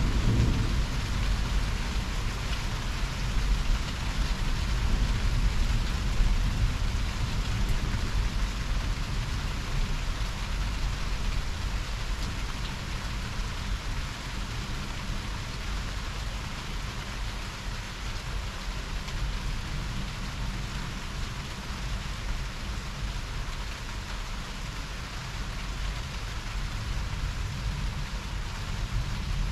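Heavy rain falling steadily in a thunderstorm. A low thunder rumble fades away over the first several seconds.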